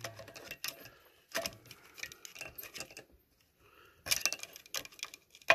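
Light, irregular metallic clicks and clinks of hand tools and small parts being worked at a small engine's governor gear. A quick cluster of clicks comes about four seconds in and a sharper click near the end.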